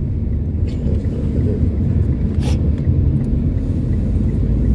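Steady low rumble of a car driving, heard from inside the cabin, with a faint click or two.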